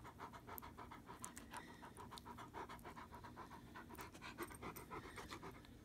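Rottweiler panting quickly and faintly, in short, even breaths.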